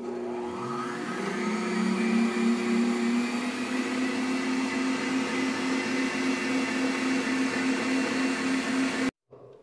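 Electric stand mixer running with its wire whisk beating egg yolks, sugar and oil into a cream: the motor hum rises in pitch over the first second or so as it speeds up, then holds steady, and cuts off suddenly near the end.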